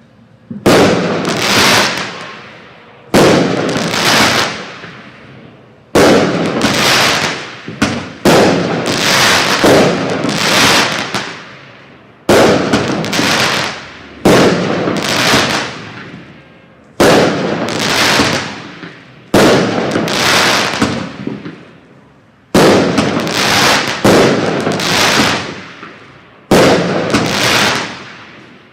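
Fireworks going off in a steady sequence, a loud bang about every two seconds, each one trailing off over a second or two before the next.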